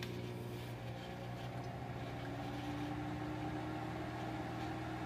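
Microwave oven running with a steady electrical hum.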